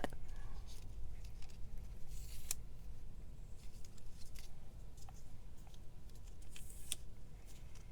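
Small clicks and a few brief scraping rustles of a handheld label maker and its label tape being handled.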